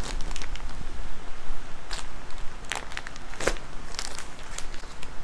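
Plastic packaging of a bedsheet set crinkling and crackling as it is handled and cut open with scissors, with a handful of sharp snips and clicks from about two seconds in.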